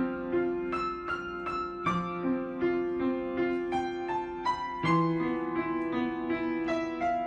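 Piano music: a melody of single struck notes, about three a second, over held lower notes.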